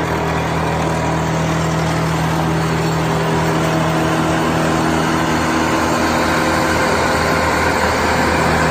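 Engine of a Morbark Blizzard 12 brush chipper running steadily, growing slightly louder over the stretch.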